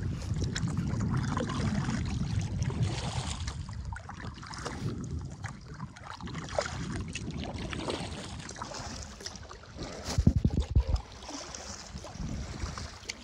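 Canoe being paddled: paddle strokes and water splashing against the boat, with wind rumbling on the microphone for the first few seconds. A short cluster of low thumps comes about ten seconds in.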